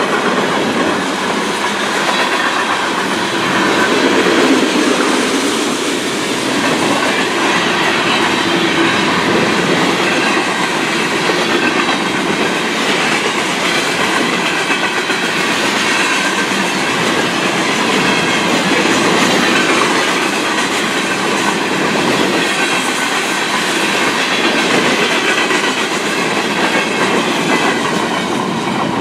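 Freight cars of a CSX train rolling past steadily, wheels clattering over the rail joints.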